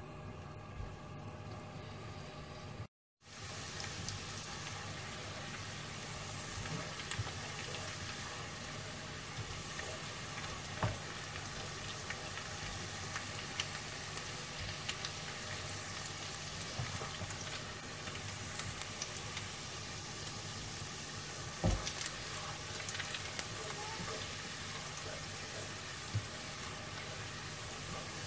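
Chopped garlic sizzling steadily in hot oil in a nonstick pan, being lightly fried before the other ingredients go in. A spatula stirs it and now and then gives a sharp tap or scrape on the pan. The sound cuts out for a moment about three seconds in.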